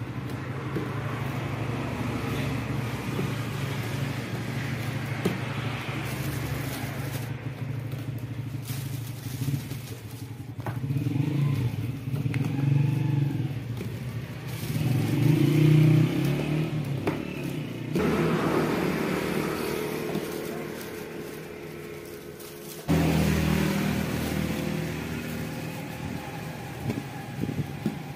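Steady motor-vehicle engine hum from nearby traffic, growing louder for a few seconds past the middle as a vehicle passes, with a plastic bag rustling as bars are packed into it.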